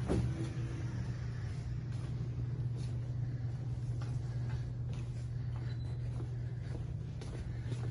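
Steady low machine hum filling the room, with faint, irregular steps and taps over it and a soft knock at the very start.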